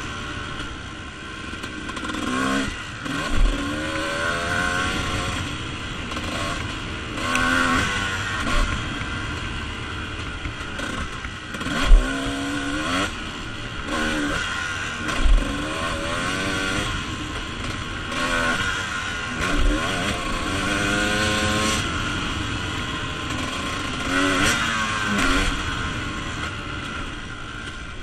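Dirt bike engine under way, its pitch climbing again and again as the throttle is opened and dropping back as it eases off. A few sharp thumps are heard, the loudest about twelve seconds in.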